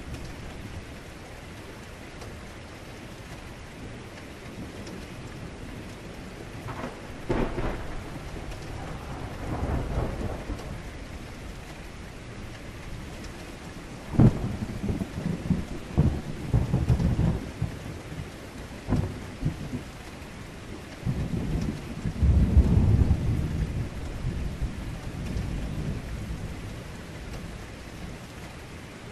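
Thunderstorm: steady heavy rain with several rolls of deep thunder. One rumble comes about a quarter of the way in, a sharp crack near the middle trails into rumbling, and a long heavy rumble follows in the last third.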